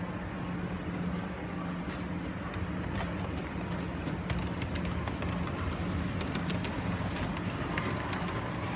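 LGB Stainz model steam locomotive with log wagons running along garden-railway track: irregular clicks and ticks of the wheels on the track, more frequent from about three seconds in, over a steady low hum.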